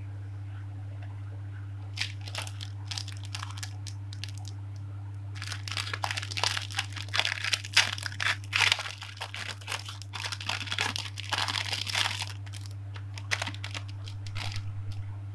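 Plastic packaging crinkling and rustling as it is handled and opened, sparse at first and densest from about five to twelve seconds in. A steady low hum runs underneath.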